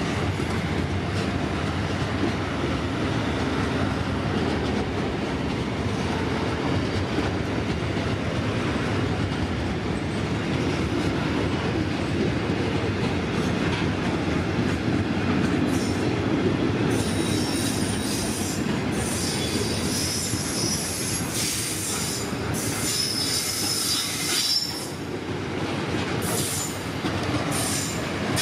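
Freight train of container wagons rolling past with a steady rumble. From a little past halfway, its wheels squeal high-pitched in repeated bursts.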